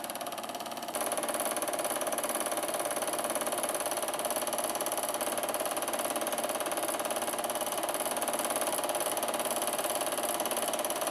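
Eumig Mark S 712 D 8mm film projector running: a steady motor whir with the film-pull mechanism's rapid, even clatter. It steps up in level about a second in.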